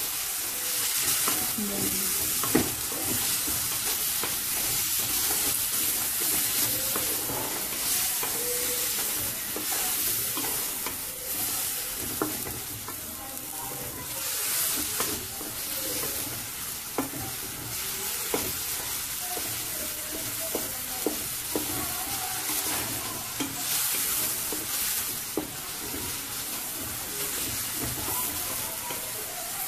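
Onions, green chillies and coriander leaves frying in oil in a metal wok while a wooden spatula stirs them. There is a steady sizzle, with scattered clicks and scrapes of the spatula against the pan.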